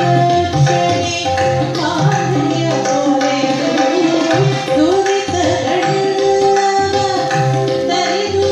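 A woman singing a Kannada Dasarapada devotional song in an ornamented, gliding line, accompanied by tabla and by sustained notes on an electronic keyboard.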